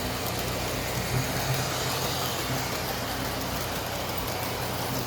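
Bachmann G-scale 4-6-0 model steam locomotive running along the track with its passenger cars: a steady hum of motor, gears and rolling wheels.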